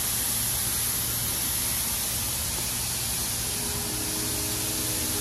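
Steady, even hiss of compressed air from a pneumatic air tool, with a low hum underneath.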